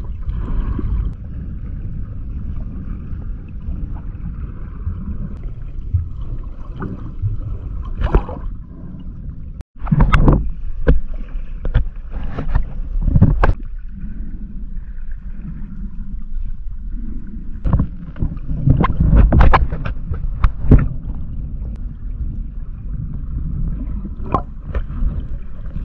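Water heard from just below the surface: a steady low, muffled rush of moving water, broken by loud bursts of splashing and bubbling, most of them between about ten and fourteen seconds in and again around nineteen to twenty-one seconds. The sound cuts out for an instant just before the ten-second mark.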